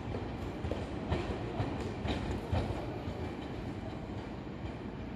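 Tokyu 5050 series 4000-subseries electric train running along the line, its wheels clacking over the rail joints about twice a second above a steady rumble.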